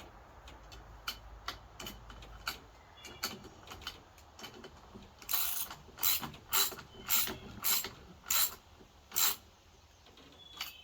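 A ratcheting hand tool tightening a fastener on a string trimmer. A few light clicks come first, then about seven short ratcheting strokes roughly half a second apart.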